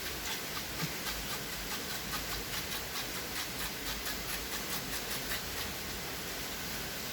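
Otok-otok pop-pop toy boat engine putting along, a fast even ticking over a steady hiss, fading out about five and a half seconds in.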